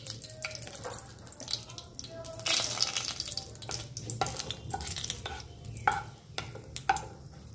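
Hot oil sizzling lightly around a dried red chilli and bay leaves as they are tempered, with a wooden spatula clicking and scraping against the non-stick pan as it stirs; the knocks come repeatedly in the second half.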